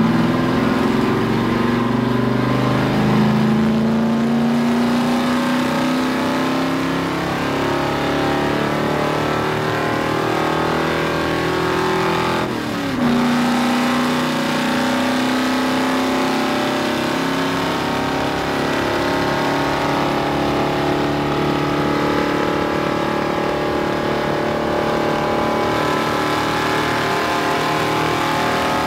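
Dodge Charger stock car's V8 engine pulling hard at speed, heard from inside the cockpit: its pitch climbs slowly, dips briefly about twelve seconds in, then holds a steady drone.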